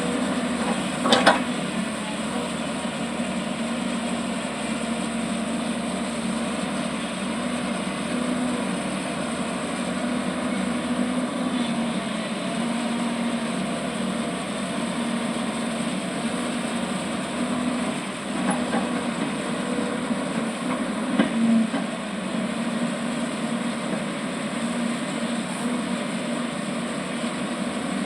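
Diesel engine of a digging machine (backhoe loader or excavator) running steadily under work, with two sharp knocks, one about a second in and another near 21 seconds.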